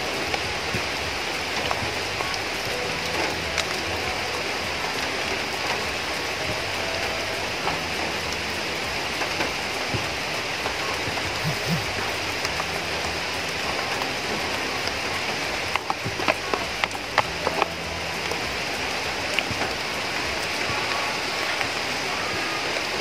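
Steady rain falling, an even hiss throughout. About two-thirds of the way through comes a quick cluster of sharp knocks as a blade digs into the wet soil.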